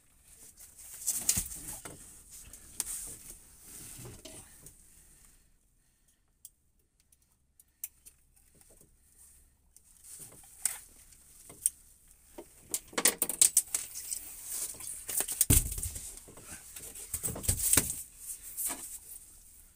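Handling noise as a dogfish is unhooked in a small boat: irregular rustling, scraping and clicking, with a few heavy knocks, the loudest two in the last few seconds.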